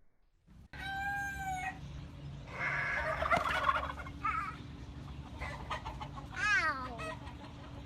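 Chickens calling: a rooster crows about a second in, then clucking, and a long call falling in pitch near the end.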